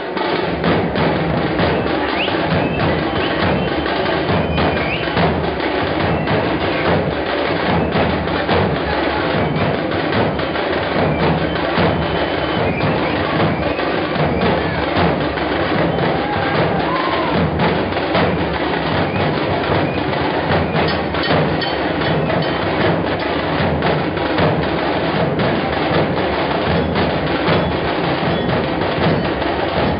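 A festival drum band plays loud, fast, continuous drumming, with sharp stick strokes over deep drumbeats.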